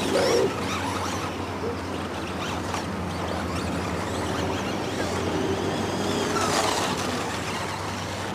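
Radio-controlled off-road buggies racing, their small motors whining up and down in pitch as they speed up and slow down, over a steady low hum.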